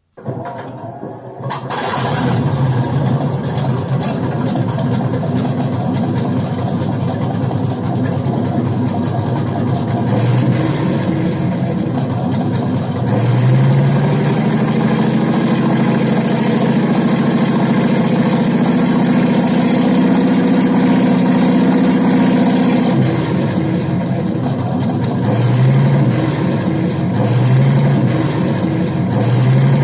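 Model-tank sound module playing a Panther tank engine sound. The engine starts about two seconds in and idles, then revs up and holds higher revs for several seconds before dropping back to idle. Near the end come three short blips of the throttle.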